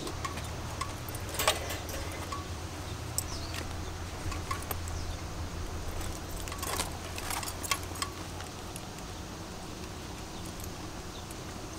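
Keys and metal clips jangling and clinking a few times as the gear hung from a waist pack moves, over a steady low hum that fades out about eight seconds in.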